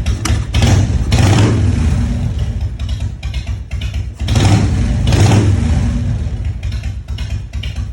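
1998 Harley-Davidson Fat Boy's Evolution V-twin running, revved twice on freshly replaced throttle cables: up about half a second in and again about four seconds in, each time dropping back to a lumpy idle.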